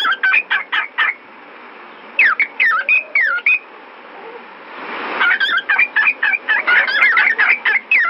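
Cockatiel chattering and whistling in three bursts of quick notes that swoop up and down in pitch, over a steady background hiss.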